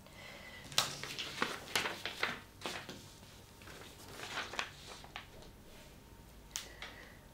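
Sheets of paper being picked up and handled on a desk: a run of short, crisp rustles and taps, then one more near the end.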